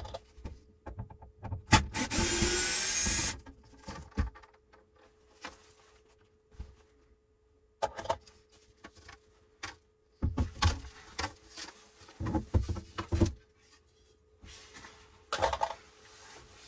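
A cordless drill-driver runs once for about a second and a half, backing out a screw from the wooden ceiling trim. Then come scattered knocks, clatter and rubbing as the wooden trim frame around the overhead hatch is taken down and handled.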